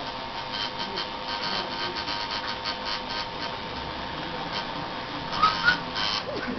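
Electric tattoo machine buzzing steadily with a high whine. Two short high-pitched chirps, the loudest sounds, come about five and a half seconds in.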